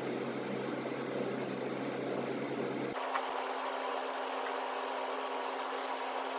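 Steady background hum and hiss of room noise. About three seconds in it switches abruptly to a higher-pitched hum.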